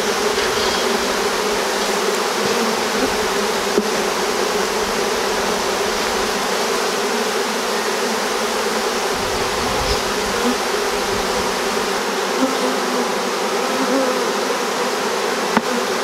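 Many honeybees buzzing in a dense, steady hum around an opened hive whose frames are being lifted.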